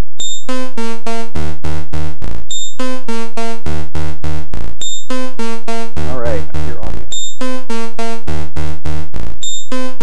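VCV Rack software modular synthesizer playing a looping sequence of short electronic notes, about four a second: higher notes followed by deeper bass notes, in a phrase that repeats every couple of seconds. The notes come from a macro oscillator stepped by an 8-to-1 sequential switch. About six seconds in, the tone turns briefly warbly as the knob controls are turned.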